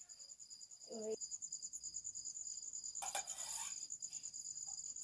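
Crickets chirping in a steady, rapid high trill. A short low sound comes about a second in, and a brief scrape or clatter, the loudest moment, comes a little past three seconds.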